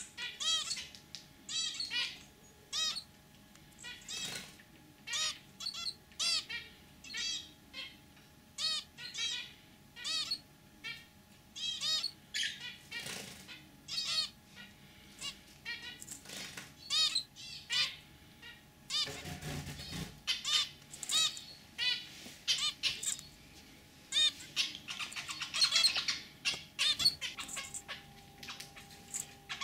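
Zebra finches calling: a steady run of short, nasal chirps, one to two a second. There is a brief low rumble about two-thirds of the way through, and the calls come faster near the end.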